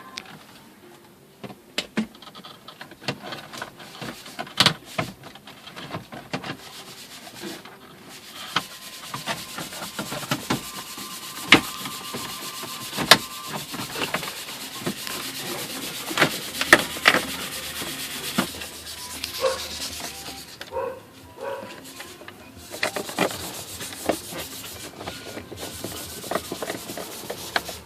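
Hard plastic interior parts of the car being handled and fitted back in place: rubbing and scraping, with many scattered clicks and sharp knocks.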